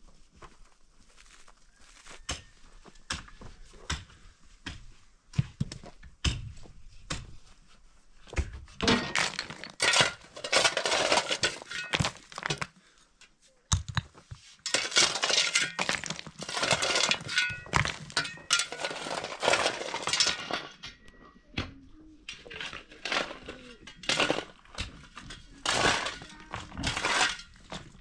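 Pickaxe and shovel digging stony soil: sharp blows of metal on rock, with loose stones and gravel clattering and scraping in two long stretches in the middle, then single strikes again near the end.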